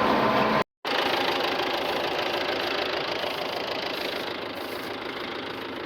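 Tractor engine idling steadily, cutting out completely for a moment just under a second in.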